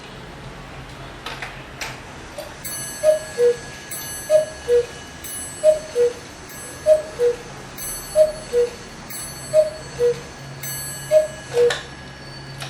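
Eight-day cuckoo clock striking: after a couple of clicks from the strike mechanism, the cuckoo calls seven times, each a falling two-note call, with a bell ringing on each call. The clock ticks underneath.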